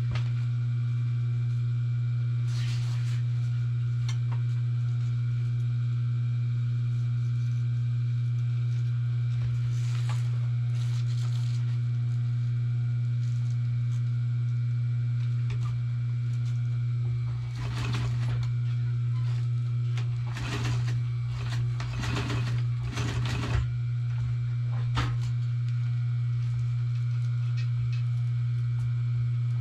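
Steady low electric motor hum at one pitch, with a cluster of short scraping, rustling bursts between about two-thirds and four-fifths of the way through.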